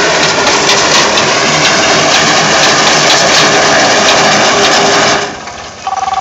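Tractor engine running with the rapid clatter of a front-mounted reaper binder cutting and tying wheat. About five seconds in the machine noise cuts off sharply, and just before the end a steady electronic two-note tone starts.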